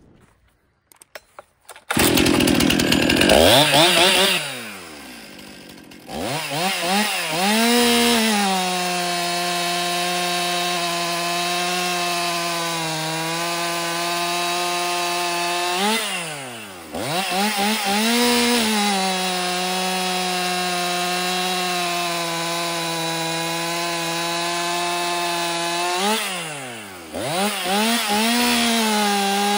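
Stihl MS 261 C two-stroke chainsaw with a worn, hand-file-sharpened chain. After a few light clicks it revs hard, drops back, then cuts through a thick log under load three times. At the end of each cut its pitch rises briefly and falls before it revs into the next.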